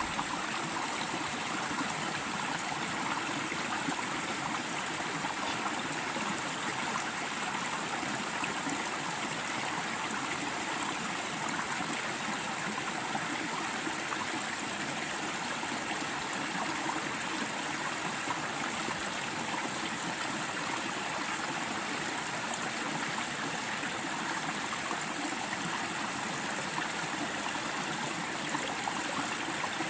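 Clear mountain stream running steadily, an even rush of flowing water.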